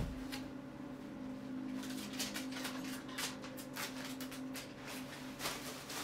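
Handling noises from someone searching over a plastic box fan: a sharp knock at the start, then a run of rustles and clicks about two seconds in, over a steady low hum.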